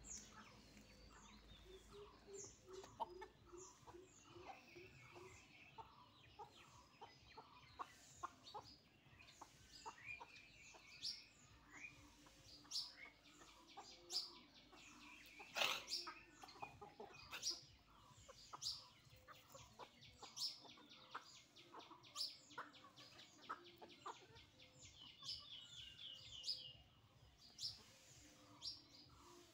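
Chickens clucking quietly while feeding, with a quick run of low clucks about two seconds in and many short ticks throughout. A rapid series of high chirps comes near the end.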